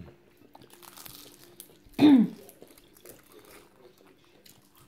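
Faint crunching and crinkling from eating crispy fried lumpia spring rolls, with one short voice sound falling in pitch about two seconds in.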